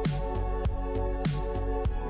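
Background music: sustained keyboard chords over a steady beat.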